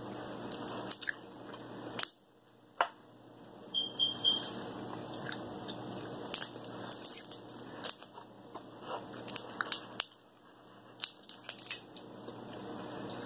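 King crab leg shell being cracked and picked apart by hand, with irregular sharp clicks, snaps and crunches, the loudest about two seconds in, mixed with some chewing.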